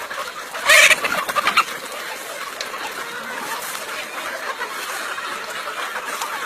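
Chickens clucking, with one loud short burst about a second in.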